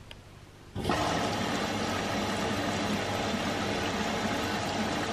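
Front-loading washing machine running a wash: the drum turns the wet load with a steady watery rushing. It starts suddenly about a second in.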